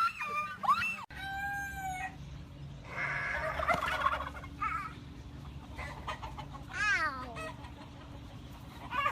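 Chickens calling: a rooster crowing and clucking, with a held call about a second in and a call that falls in pitch near the end.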